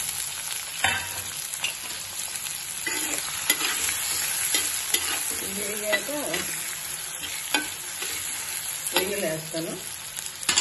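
Chopped onions sizzling in hot oil in a clay pot and being stirred, with a steady hiss and a sharp click or scrape against the pot every second or so.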